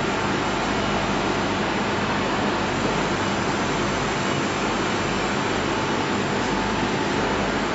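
Steady, even rushing noise, like machinery or ventilation running in a workshop, with no distinct knocks or taps.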